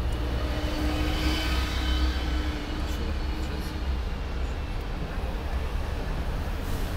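Road traffic passing close by: a double-decker bus and cars go past over a steady low rumble, with an engine tone and whine during the first three seconds as the bus draws alongside.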